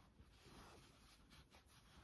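Near silence, with faint soft rustles and a few light ticks of yarn being worked with a crochet hook.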